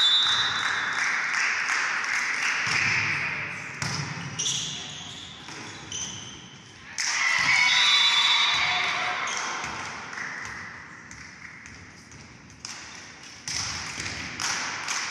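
Indoor volleyball rally: sharp, echoing smacks of the ball being served and hit, players shouting, and short blasts of a referee's whistle, one at the start and another about halfway through, each followed by loud shouting.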